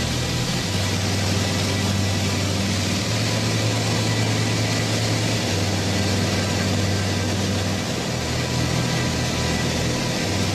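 Steady rushing wind and engine noise inside a small jump plane's cabin with the door open in flight, under a low hum that steps to a new pitch every two to three seconds.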